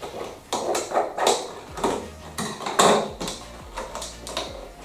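Scissors cutting through a stiff clear plastic blister package, and the plastic crackling as it is pulled apart by hand: a run of sharp snips and crackles at uneven intervals, the loudest about three seconds in.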